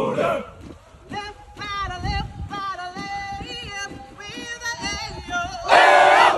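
A marching cadence: a single voice sings the cadence call over the steady tramp of marching boots, then the platoon shouts its answer in unison near the end.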